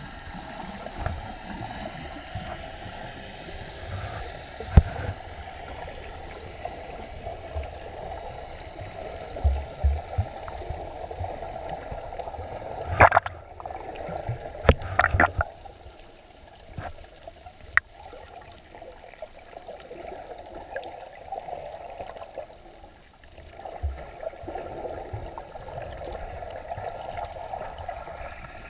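Muffled underwater sound picked up by a submerged camera: a steady water hiss and sloshing, broken by a few sharp knocks, with a cluster of louder clunks around the middle.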